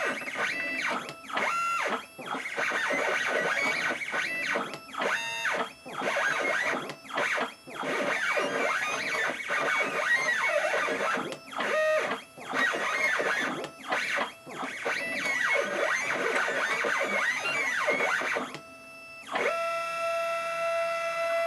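Stepper motors of a Stepcraft CNC machine whining as its drag knife cuts a vinyl outline. The pitch shifts with each move, with brief pauses between moves, and settles into one steady tone near the end.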